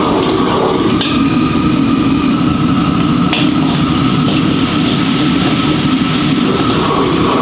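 A loud, steady machine-like drone with a thin steady whine above it.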